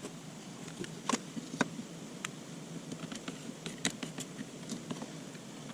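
Light, scattered clicks and taps of a wooden shim and small hand tools being handled, over a faint steady room hum.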